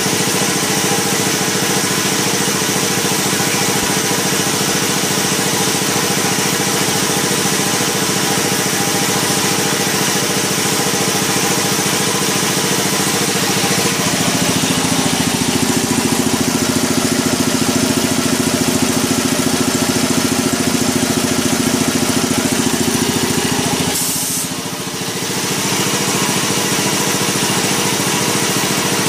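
Quincy 325 air compressor running steadily, its belt-driven pump and electric motor making a dense, even mechanical hum. About halfway through it swells louder and deeper for some ten seconds, then dips briefly before settling back to its steady run.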